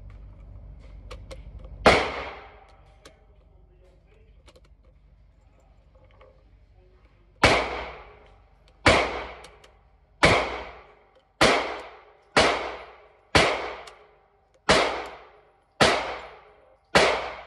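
Gunshots at an indoor range from another shooter's gun: a single shot, then about five seconds later nine shots at a slow, even pace, roughly one every second and a bit, each with a short echo in the room. Faint clicks of cartridges being pressed into a magazine come before the first shot.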